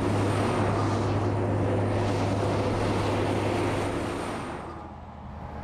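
A heavy road train's diesel engine droning steadily with tyre and road noise, fading away near the end.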